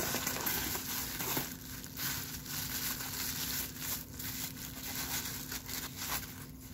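Bubble wrap and plastic packaging crinkling and rustling in hands as it is pulled from a cardboard box and unwrapped: a dense, continuous crackle.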